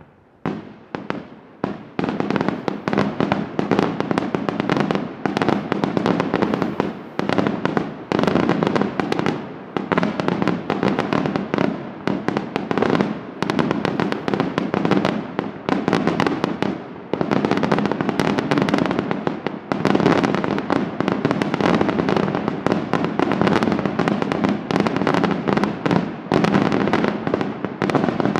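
Palmese Fireworks aerial shells bursting in a night display. It opens with a few separate bangs, and from about two seconds in becomes a dense, rapid, near-continuous barrage of reports.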